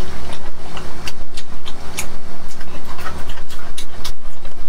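Close-miked wet chewing and smacking of sauce-coated, gelatinous braised meat, with many quick sticky clicks several times a second.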